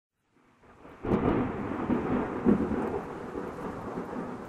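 A deep rolling rumble like thunder that sets in abruptly about a second in, swells twice, and slowly dies away.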